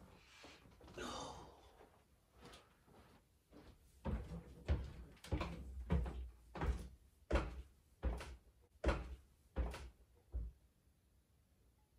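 A soft rustle as someone gets up from a couch. Then, about four seconds in, a run of about a dozen heavy thuds begins, evenly spaced at roughly one and a half a second, ending a little after ten seconds in.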